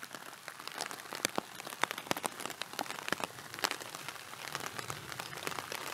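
Rain falling on a plastic tarp overhead: a steady hiss with many sharp, separate drop hits scattered through it.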